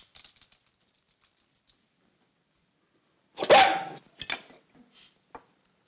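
Small dog barking: one loud bark a little past halfway, followed by a few shorter, fainter yaps.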